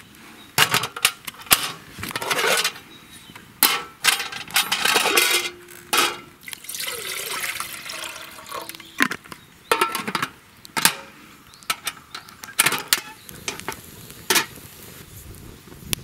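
Water poured from a plastic bottle into an aluminium mess tin about two-thirds of the way in. Before and after it come many sharp clinks and knocks of metal camp cookware being set down and handled.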